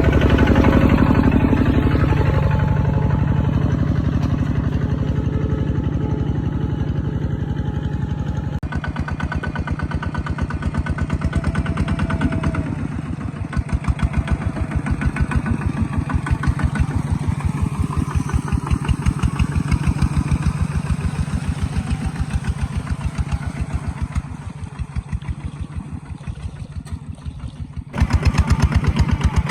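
Kubota ZT140 single-cylinder diesel engine of a walk-behind tractor running, with an even beat of firing strokes. The sound changes abruptly about nine seconds in and again near the end.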